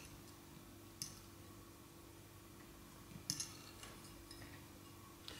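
A few faint clicks of a metal fork against a glass bowl as potato croquettes are turned in beaten egg: one at the start, one about a second in and two close together a little after three seconds, over a faint steady hum.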